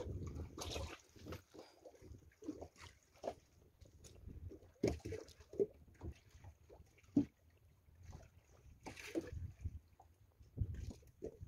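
Water sloshing and lapping against the side of a small drifting boat, with scattered short knocks and splashes at irregular intervals.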